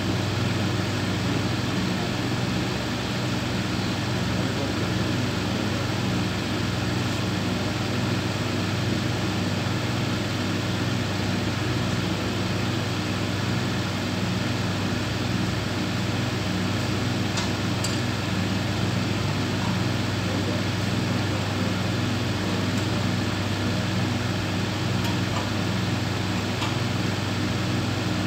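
Steady low drone of running industrial machinery, unchanging in level and pitch, with a few faint ticks now and then.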